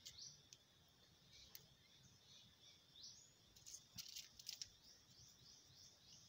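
Faint, high, short rising bird chirps, scattered at first and then repeating about three a second near the end, over a steady high hiss. A few sharp clicks and rustles come about four seconds in as a hoopoe chick is picked up by hand.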